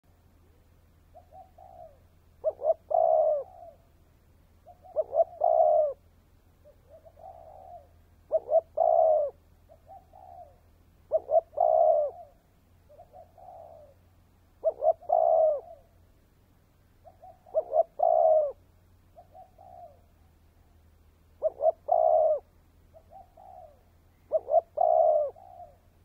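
A spotted dove cooing as a decoy, its phrase repeated about every three seconds: two short notes and a longer drawn-out coo, with softer short coos between the phrases.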